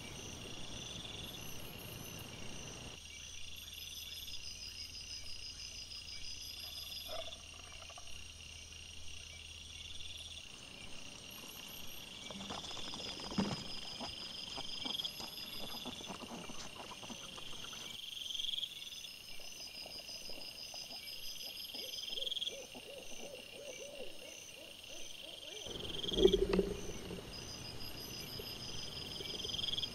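Night insects chirping in a steady, evenly repeating pattern, with a few faint knocks and rustles from the foraging wild boar. A short, louder low sound comes near the end.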